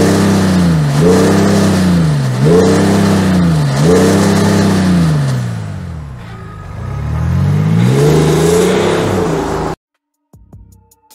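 A high-performance car engine revved hard in four quick blips, each pitch sweeping sharply up and falling back. Then comes a slower, longer rev that climbs, holds briefly and drops away before cutting off abruptly near the end.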